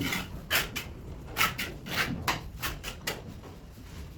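Short, irregular scraping strokes, a hand tool rubbing across a hard surface, about eight or nine times, fading toward the end.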